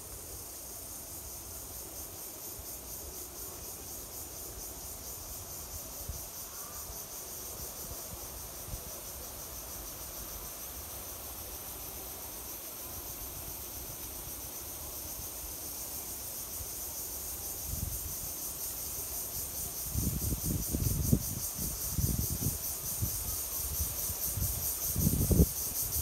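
Insect chorus: a steady, high-pitched, finely pulsing drone. From about two-thirds of the way in, gusts of wind buffet the microphone with low rumbles.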